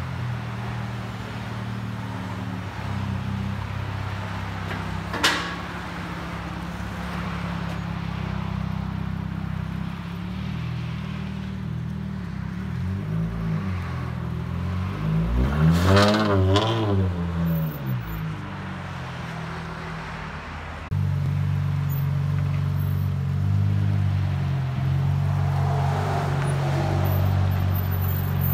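2012 Dodge Charger's 3.6-litre V6 idling steadily through straight-piped dual exhaust, with the resonator and both mufflers deleted and the catalytic converters kept. About halfway through, a louder swell rises and falls. About three quarters in, the idle becomes louder and fuller.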